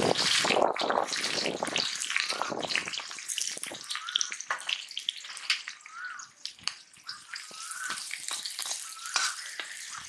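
Chopped onions sizzling and crackling in hot oil in an iron kadai. The sizzle is loudest as they first hit the oil and dies down over the following seconds as the frothing settles.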